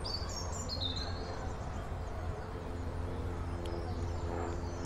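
Outdoor park ambience: a few quick bird chirps in the first second over a steady low rumble, with a held chord of steady musical tones growing in from about three seconds in.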